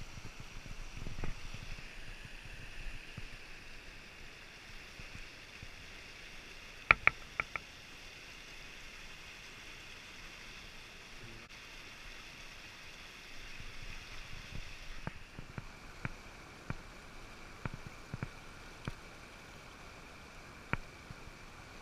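Fast mountain stream rushing over rocks, a steady noise of water. A few sharp clicks come about seven seconds in, and lighter scattered clicks come near the end.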